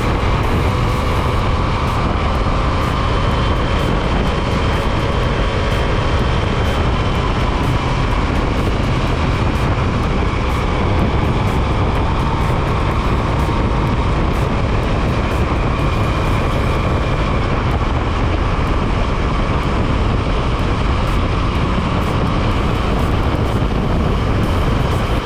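Motorcycle riding at a steady speed: a steady rush of wind noise with a faint engine hum that drifts slowly in pitch.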